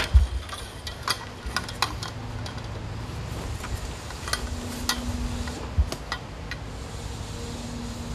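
Scattered light clicks and clinks over a low rumble, with two dull low thumps, one right at the start and one near the six-second mark.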